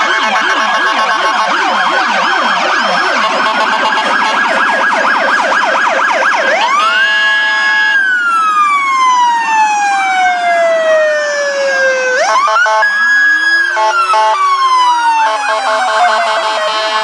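Several ambulance and EMS vehicle sirens sounding together at close range. Rapid yelping cycles overlap for the first several seconds. Then come slow wails that climb, hold and glide down in long falling sweeps, around the middle and again a few seconds later. Fast yelping starts up again near the end.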